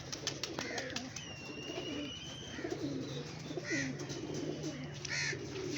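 Domestic pigeons cooing repeatedly, with a few sharp clicks and a steady low hum underneath.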